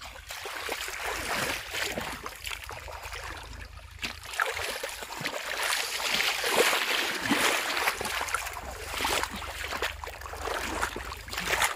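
Shallow muddy pond water splashing and sloshing as hands and legs churn it while groping for fish, irregular and louder from about four seconds in.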